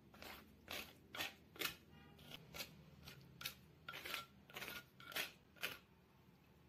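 Green chilli paste being scraped and gathered on a stone mortar, with short scraping strokes about two a second that stop about six seconds in.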